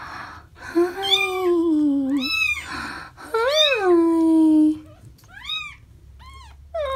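Two-week-old kitten mewing: a run of about five high cries, two of them long and drawn out, each rising then sliding down in pitch.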